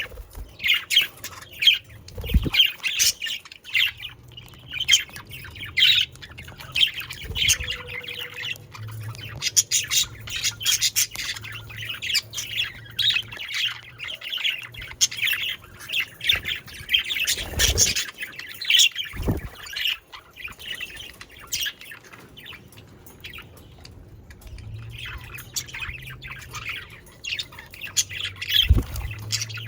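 A flock of budgerigars chattering without pause, their warbles, chirps and squawks overlapping. A low hum runs underneath in parts, and there are a few short low thuds.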